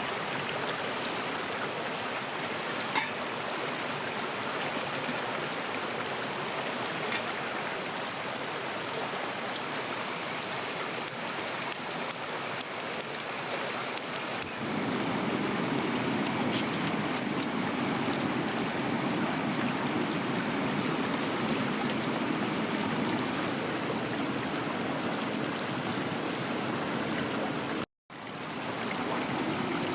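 River water flowing steadily, a continuous rushing. About halfway through it gets louder and fuller, and it cuts out for a moment near the end.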